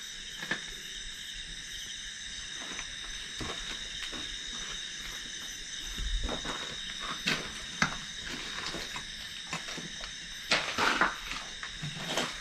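Steady high-pitched drone of night insects, with scattered footsteps and scuffs on the floor of a derelict building.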